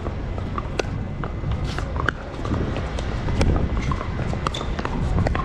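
Pickleball rally: paddles striking the hard plastic ball and the ball bouncing on the court, as sharp, irregular pops several times a second over a steady low rumble of background noise.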